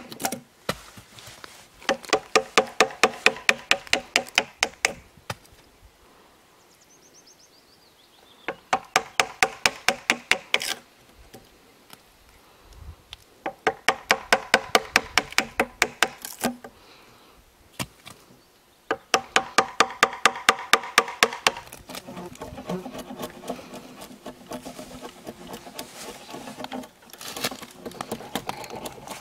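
A claw hammer striking a wood chisel into the end of a log in fast runs of about four or five blows a second, each blow a sharp knock with a metallic ring, in four bursts of a few seconds with pauses between. In the last several seconds a knife is shaving wood off the log end, a rougher scraping sound.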